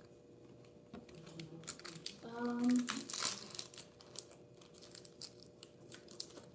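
Foil Yu-Gi-Oh booster pack wrapper crinkling as it is handled and torn open by hand: a run of crackling rustles, loudest from about two to three and a half seconds in.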